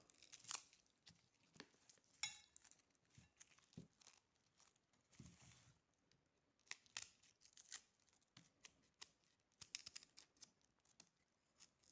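Faint, scattered crackling and tearing of dry, papery garlic skin as garlic is handled and its cloves are broken off, with light clicks in between.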